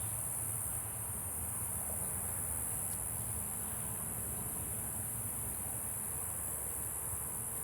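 A steady, high-pitched chorus of evening insects, crickets, shrilling without a break, over a low steady rumble.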